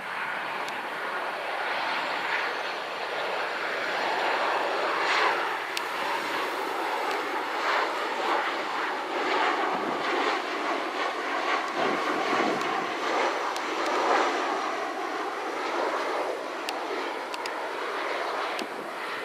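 Boeing 737-800 jet airliner on final approach passing overhead with its CFM56 engines at approach power. A steady jet rush builds over the first few seconds, holds through the middle, and eases a little near the end, with slight shifts in pitch as it goes by.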